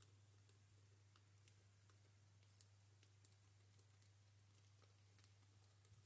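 Faint, irregular crunching clicks of guinea pigs chewing dry pellet food from a bowl, over a low steady hum.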